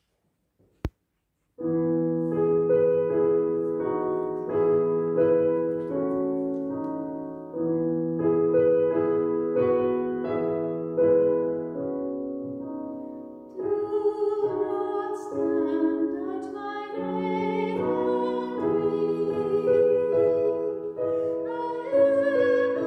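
A short click, then a keyboard playing slow, held chords as an introduction. About halfway through, the choir's voices come in singing over the accompaniment.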